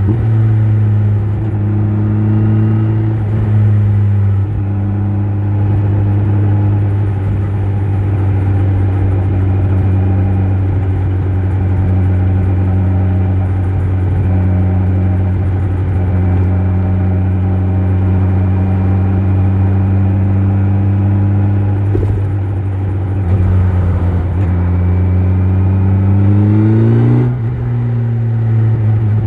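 Kawasaki Z900 inline-four engine through an Akrapovic exhaust, running at steady revs under way. Near the end it revs up, then the pitch drops sharply as it shifts gear.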